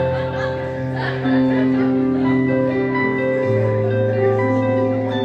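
Live band music led by guitar, with held chords that change about every couple of seconds.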